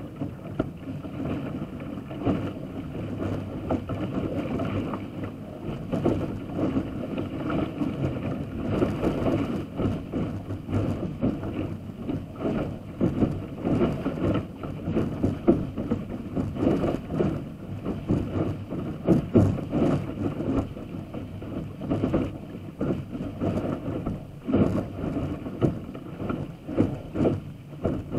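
A sailing dinghy's hull driving through choppy water at speed: water rushes and sprays along the hull, and waves slap the bow in frequent irregular splashes, with wind noise on the microphone.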